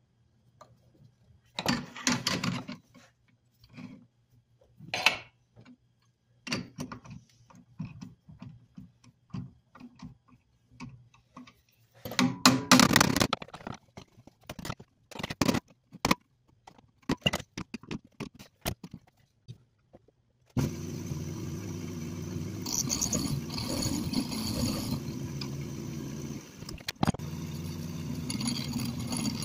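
Scattered metallic clinks and knocks as an aluminium cube is fitted into a metal lathe's chuck. About twenty seconds in, the lathe starts and runs steadily, turning the aluminium cube.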